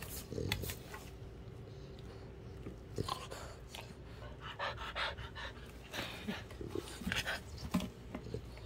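Bulldog puppy panting in short, breathy bursts, mostly from about three seconds in.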